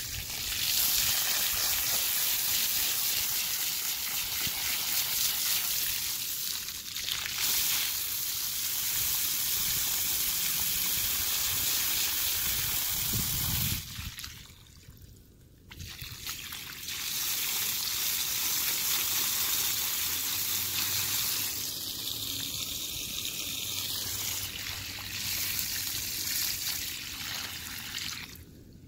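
Water spraying from a garden hose onto soil, grass and rocks in a steady hiss. The spray stops for about two seconds near the middle, then starts again.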